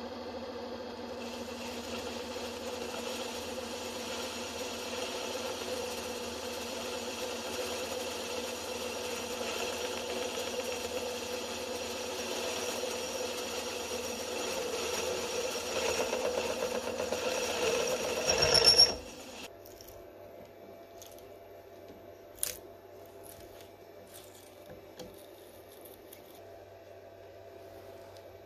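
Milling machine spindle running with a boring head cutting down the outside of a round metal part, a steady machine sound with a ringing whine that grows louder and then stops abruptly about two-thirds of the way through. After it there is only a faint hum and one sharp click.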